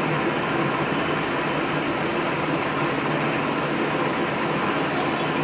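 Automatic glue-coating roller machine of a gypsum ceiling tile production line running, a steady mechanical drone with a thin high whine held over it.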